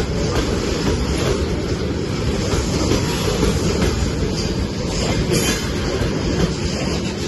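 Freight train of tank cars rolling past at close range: a steady rumble of wheels on rail with occasional clacks.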